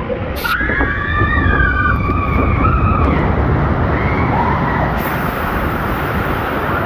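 Log-flume riders screaming together as the log plunges down the drop, with a heavy rush of wind on the microphone. From about five seconds in, a bright hiss of rushing, spraying water comes in.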